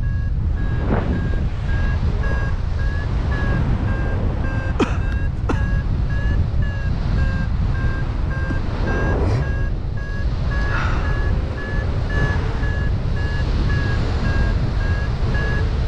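Paragliding variometer beeping in an even, quick train of high beeps, the sound it makes while the glider is climbing in lift; the beep pitch rises slightly near the end. Wind rumbles on the microphone throughout.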